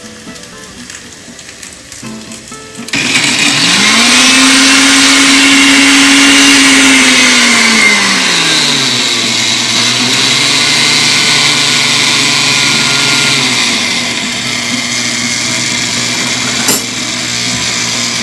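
Electric kitchen blender crushing chunks of pineapple with no added water. The motor starts suddenly about three seconds in, its pitch rising and holding, then dropping about eight seconds in and settling lower as it keeps running.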